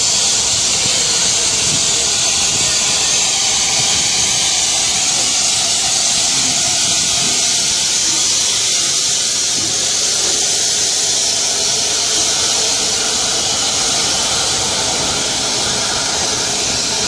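Rebuilt Bulleid West Country class steam locomotive letting off steam with a loud, steady hiss, easing slightly near the end.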